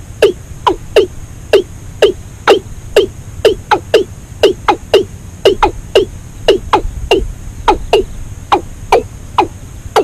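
Watercock calling: a long series of short notes, each dropping sharply in pitch, repeated about two to three times a second.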